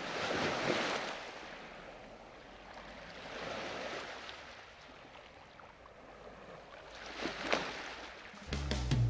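Sea water rushing in slow swells, like waves washing, three times over, under a faint low hum. Music comes back in near the end.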